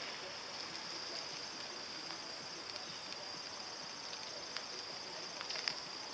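Quiet outdoor ambience: a steady high-pitched hiss, with a few faint ticks near the end.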